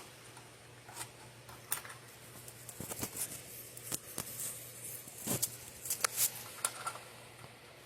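Scattered light clicks and taps of hands handling a fire alarm pull station, over a faint steady hum.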